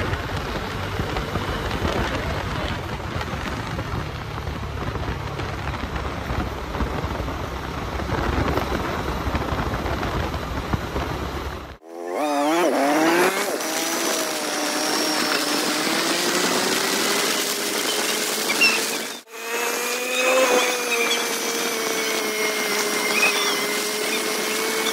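Bajaj Dominar 250 motorcycle on the move. For about the first half, wind buffets the microphone over the riding noise. Then, after an abrupt break, the single-cylinder engine rises in pitch as it accelerates and settles into a steady cruising tone, with another brief dropout later on.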